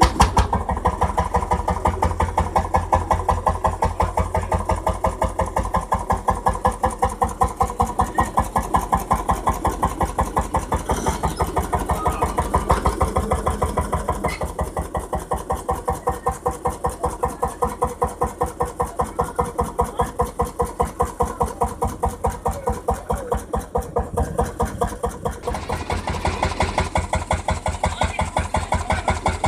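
Vintage tractor engine running at a slow, steady beat of regular firing pulses. It eases off a little in the middle and picks up again near the end.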